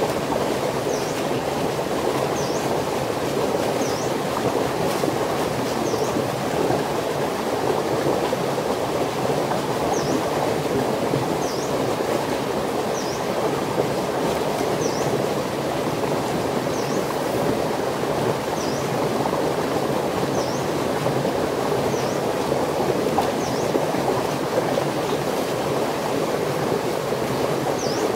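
Steady rushing of flowing water, with a short high chirp repeating every second or two over it.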